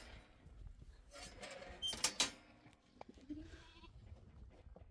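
Sheep bleating faintly, with two sharp clicks about two seconds in.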